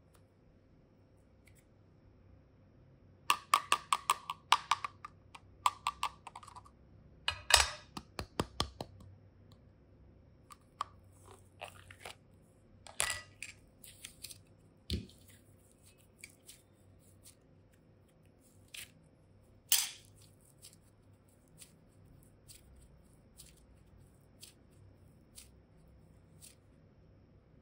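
Hands working modelling clay in a thin clear plastic container: a run of crackling, crunching clicks a few seconds in, then scattered clicks, taps and squishes, with one dull thump midway.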